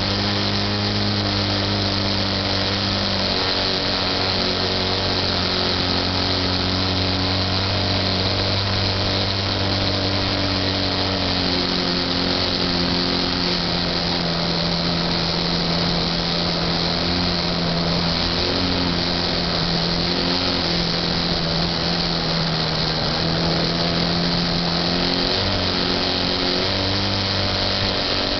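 Motor and propeller of a Titan J3 model airplane heard from a camera on board, running steadily with a hiss over it. Its pitch steps down and back up several times.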